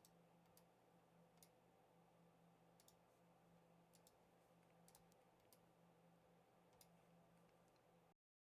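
Near silence with faint, irregular computer mouse clicks, about ten spread over several seconds, as edges are selected. The sound drops to complete silence near the end.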